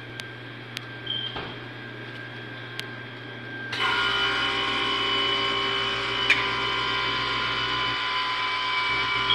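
A low steady hum with a few small clicks, then, about four seconds in, a motor-driven machine switches on abruptly and runs steadily with a high whine.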